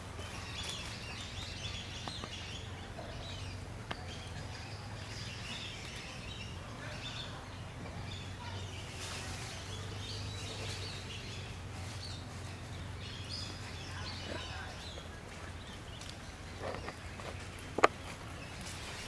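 Birds chirping in scattered short calls over a steady low rumble, with one sharp click near the end.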